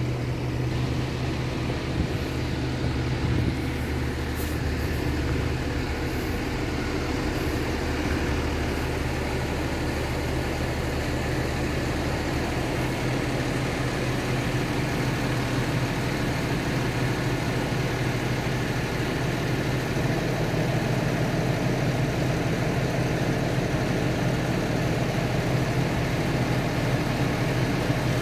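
Mobile crane's diesel engine running steadily.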